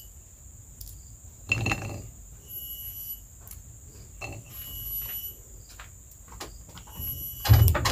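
Insects calling, with short, steady, high-pitched calls repeating every second or so over a constant thin high drone. A few knocks and clatters come through, the loudest near the end.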